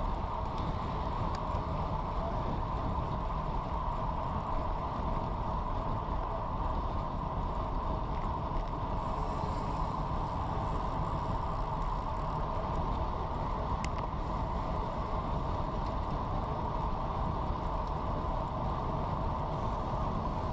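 Steady rush of wind over a bike-mounted camera's microphone, together with road tyre noise, while riding a road bike at about 25 mph.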